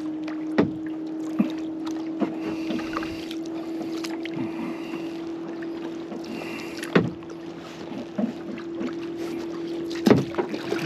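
Kayak paddle strokes: a double-bladed paddle dipping and splashing, with a few sharp knocks of the paddle against the plastic kayak hull, over a steady low hum.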